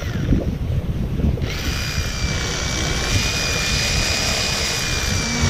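Corded electric fillet knife running with a steady high motor whine as it slices through fish fillets. The whine is absent for the first second and a half, then starts and holds steady.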